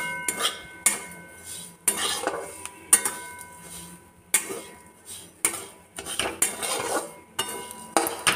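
Steel spatula scraping and stirring a dry mixture of grated carrot and semolina around a kadai, with irregular scrapes and clinks of metal on the pan, about one or two a second.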